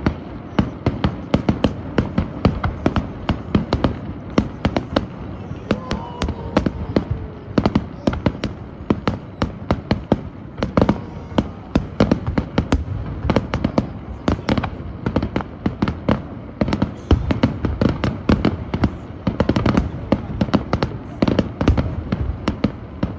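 Aerial fireworks display: shells bursting in a dense, uneven string of bangs and crackles, several a second, without a break.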